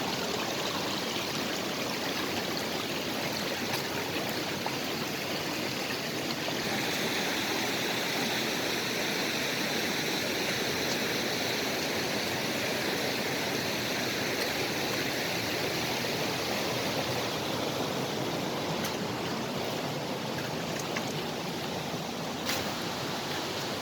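Mountain creek water rushing steadily, its hiss growing brighter about a quarter of the way in and easing again toward the end. A single sharp click sounds near the end.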